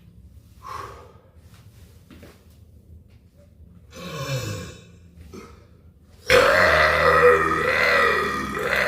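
A person burping: a short burp about four seconds in, then a long, loud burp that starts suddenly about six seconds in and wavers in pitch for over two seconds.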